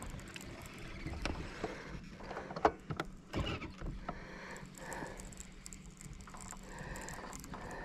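Baitcasting reel being cranked through a retrieve: a faint steady whir with scattered light clicks and knocks, a few sharper ones a third of the way in.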